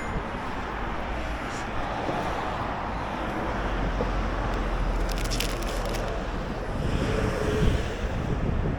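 Steady wind rush and road noise while riding a scooter, with a short run of crackling clicks about five seconds in.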